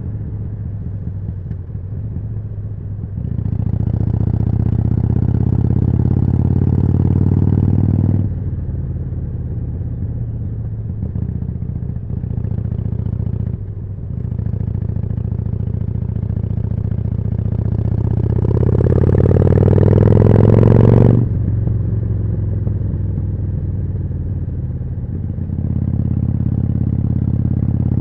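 Harley-Davidson Forty-Eight's air-cooled 1200 cc V-twin, through a Jekill & Hyde exhaust, running under way. It pulls harder for several seconds and then drops off sharply as the throttle shuts. Later it revs up in one long rising climb that cuts off suddenly, and it pulls again near the end.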